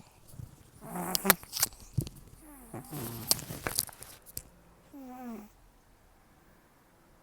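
An old, nearly toothless cat snoring in its sleep, with very rough, noisy breathing. Three loud snores come about two seconds apart with sharp clicks among them; the third carries a bending, pitched tone.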